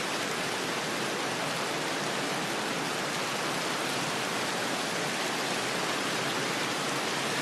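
Rain-and-wind ambience: rain and a running stream mixed with wind, an even rushing hiss at a steady level.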